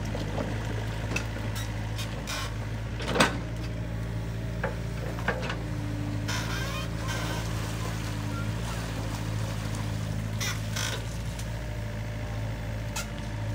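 Hitachi Zaxis 50U mini excavator's diesel engine running steadily as the machine works in mud. A sharp knock comes about three seconds in, and a higher hum sits over the engine for a few seconds midway.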